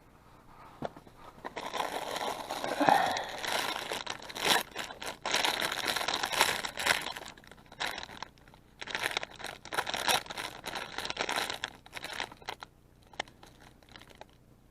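Crinkling and rustling of something being handled, as with packaging or a bag, in irregular stretches with short pauses.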